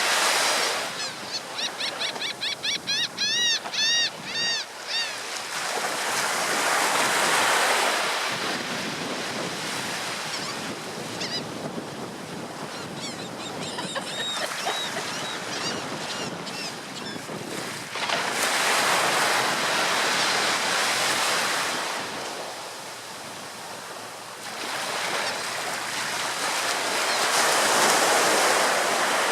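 Ocean surf breaking and washing up the shore, swelling in waves roughly every ten seconds. Near the start a bird gives a quick series of repeated high cries, with a few fainter calls in the middle.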